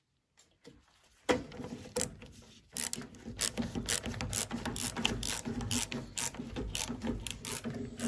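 Ratcheting screwdriver clicking as it drives screws, a run of sharp ratchet clicks a few per second after a near-silent start.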